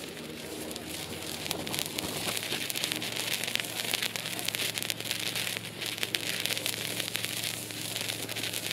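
Black Cat 1.21 Gigawatt firework fountain spraying sparks with a dense, continuous crackle. It thickens about a second and a half in and thins slightly near the end.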